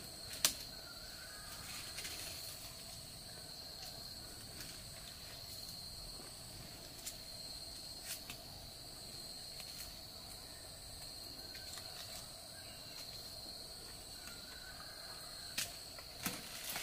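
Steady high-pitched insect drone from the orchard, with a few sharp clicks and taps scattered through it, loudest about half a second in and twice near the end.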